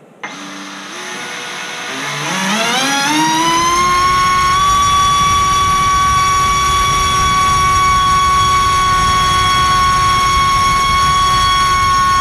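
LDpower 2305 2600kv brushless motor spinning a 5040 tri-blade propeller on a thrust stand, run on a 5S battery. It starts about a quarter second in, climbs in pitch over the next few seconds, then holds a steady high whine.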